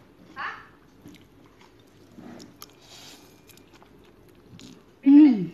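A person chewing a mouthful of noodles close to the microphone, with faint clicks of a fork on a plate. Just after five seconds a short, loud voice sound falls in pitch.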